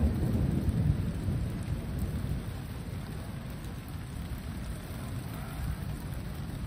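Thunder rumbling low, strongest in the first two seconds and then dying down, over a steady hiss of rain.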